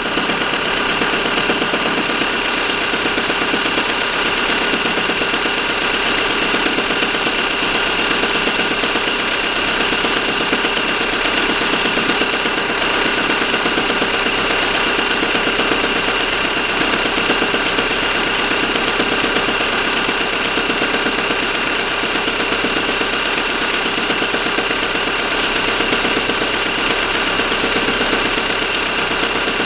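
Fiat Doblo 1.6 16v Natural Power four-cylinder engine running steadily with a continuous rapid knock, which the owner takes for the timing belt knocking.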